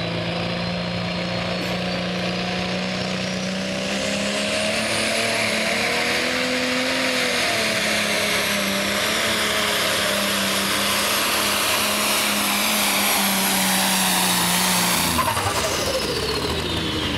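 Light Pro pulling tractor's turbocharged diesel engine running at full throttle as it drags the weight sled down the track, with a thin turbo whine rising over the first few seconds. About fifteen seconds in the throttle comes off and the engine and turbo whine wind down, falling in pitch.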